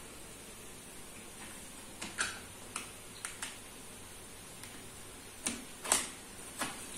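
Self-adhesive vinyl sticker sheet being handled and trimmed with scissors on a cabinet door: irregular short crackles and clicks, starting about two seconds in, the loudest near the end.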